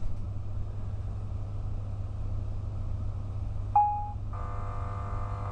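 Steady low rumble and hum inside a VR Sm3 Pendolino train as it pulls out of the station. About four seconds in there is a short electronic beep, then a steady electronic buzz begins.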